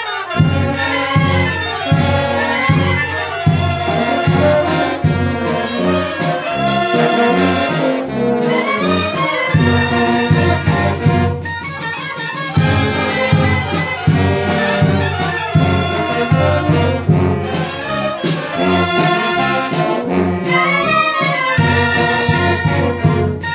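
A Mexican wind band of clarinets, trumpets and alto saxophone playing a lively tune together over a steady low beat.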